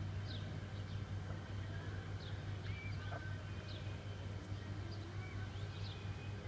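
Peafowl chicks giving short, high, falling peeps, about one a second, over a steady low hum.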